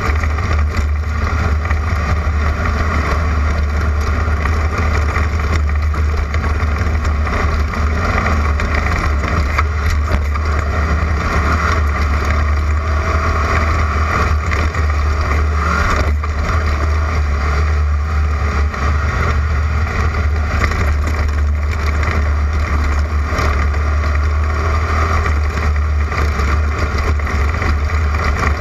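Class 11 stock Volkswagen Beetle off-road race car running at speed: a steady engine drone over a heavy, constant low rumble, without clear revving up or down.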